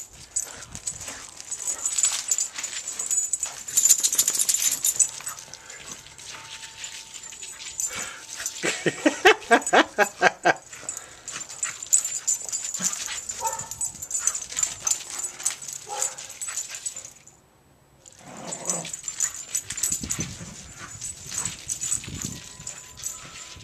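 Two dogs play-fighting over a squeaky-free plush toy, making short barks and whines, with scuffling paws on crusted snow. The loudest part is a quick run of yips about halfway through.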